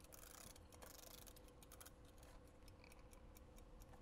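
Yellow wind-up kitchen timer's dial being turned by hand, giving a run of faint, sharp clicks from its clockwork.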